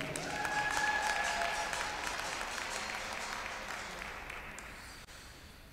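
Audience applauding in the stands, the clapping slowly dying away.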